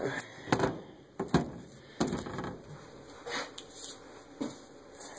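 Handling noises from objects being moved on a work surface: a series of sharp knocks and clatters, most of them in the first second and a half, then fainter ones spaced about a second apart.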